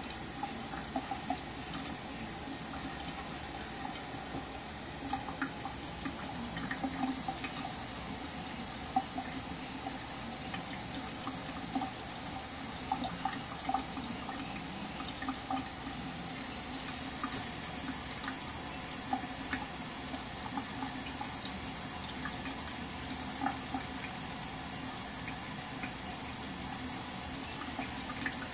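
A thin stream of tap water running from a kitchen faucet into a stainless steel sink: a steady splashing with small, irregular ticks scattered through it.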